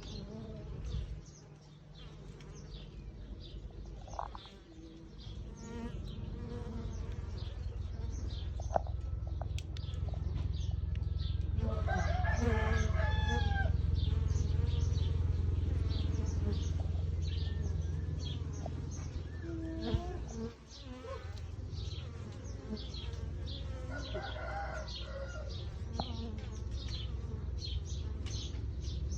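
Bees buzzing in a steady low drone that grows louder through the middle. Small birds chirp throughout, and a rooster crows about twelve seconds in, with a fainter fowl call near the end.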